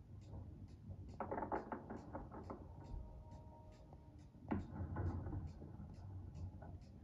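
Fireworks bursting and crackling, played through a television's speaker into a small room: a run of quick crackles about a second in, then a single thump midway, over a low rumble.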